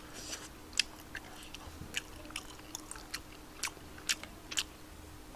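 A man chewing a mouthful of food close to the microphone: a string of small, wet mouth clicks and smacks, a few a second.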